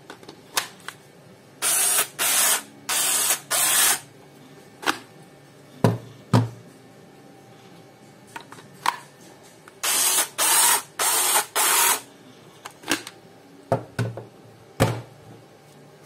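Battery-powered Gesipa blind rivet tool's motor running in four short bursts of about half a second each, then after a pause four more, with clicks and knocks of the tool and batteries being handled in between.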